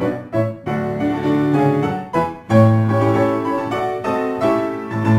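Background piano music, a melody of changing notes.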